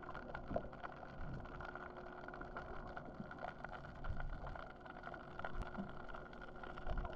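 Underwater sound picked up by a GoPro hanging in the water under a boat: a low muffled rumble with a steady hum and scattered faint clicks.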